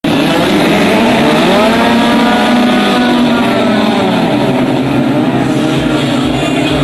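Racing power boat engines running at high revs, loud and continuous, the engine note rising and then falling in pitch as the boats race past.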